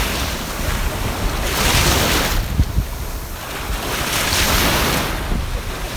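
Black Sea surf washing ashore, swelling twice, with wind buffeting the microphone.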